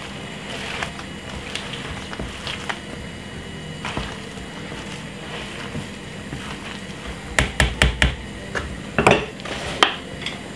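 Wooden spoon stirring boiled potatoes in a plastic mixing bowl: soft scraping with light knocks of the spoon against the bowl, and a quick run of four sharper knocks about seven and a half seconds in, followed by a few more.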